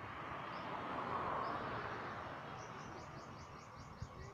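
A car passing on the road, its rushing noise swelling about a second in and then fading away. In the second half a bird chirps in a quick series of high notes, about five a second.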